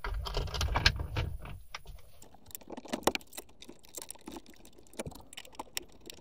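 Small irregular clicks and scrapes as a mounting screw is started and turned in with a flathead screwdriver, fastening a sun visor's plastic bracket to the car's roof. A low rumble of the bracket being handled against the headliner comes in the first second and a half.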